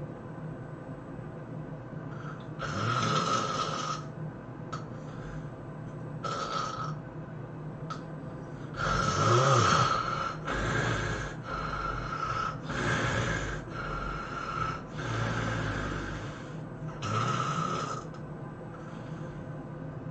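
A sleeping person snoring. Two separate snores come first, then from about nine seconds in a quick run of seven loud snores, each about a second long and about a second apart. The first snore of the run is the loudest.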